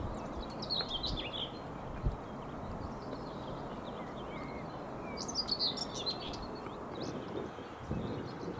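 Songbirds chirping in two short bursts, about a second in and again around five to six seconds in, over a low steady rumble.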